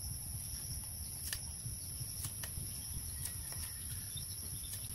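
Steady high-pitched insect chirring over a low rumble, with a few sharp clicks as a bolo knife cuts the ends of bamboo strips on a woven basket.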